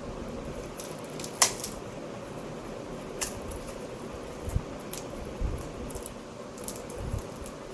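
Scattered handling noises: a few sharp clicks and light taps with soft rustling, the loudest click about a second and a half in, over a steady low hum.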